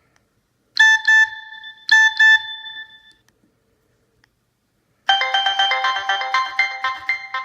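Nokia 6021 mobile phone ringtones playing. Two quick double-note chimes come about a second apart and ring out. After a silence of about two seconds, a fast, busy melody of many short notes starts.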